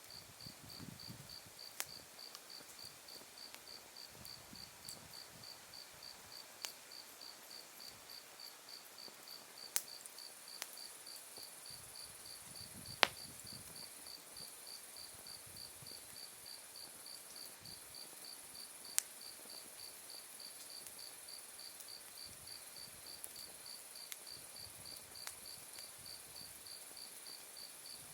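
Autumn insects calling: a cricket chirping in an even, fast pulsed rhythm at one high pitch, joined about ten seconds in by a steady, higher trill from another insect. Under them an open wood fire crackles softly, with a few sharp pops of burning wood, the loudest about thirteen seconds in.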